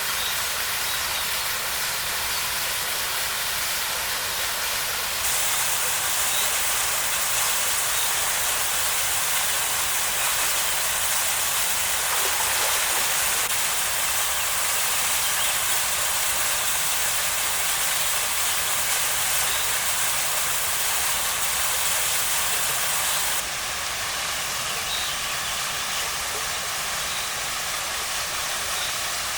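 Steady rush of a small waterfall pouring over rocks into a pool. The rush gets louder and brighter about five seconds in and softens again near the end.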